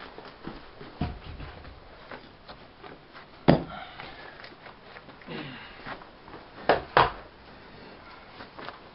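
Hard blocks knocked and shifted inside a brick kiln's firebox: a knock about a second in, the loudest about three and a half seconds in, and two close together near seven seconds, with light scrapes and clicks between.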